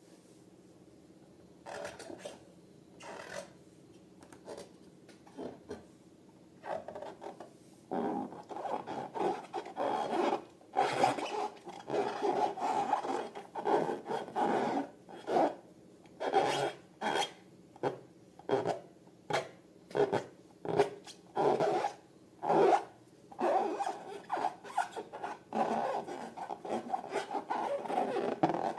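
Repeated rasping rubbing strokes, sparse and faint at first. About eight seconds in they turn loud and regular, roughly one or two strokes a second.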